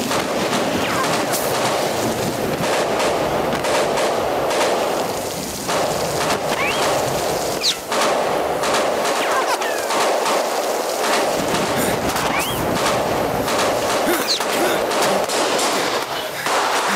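Gunfire: single shots and bursts of automatic fire, cracking irregularly throughout, over a steady hiss of heavy rain.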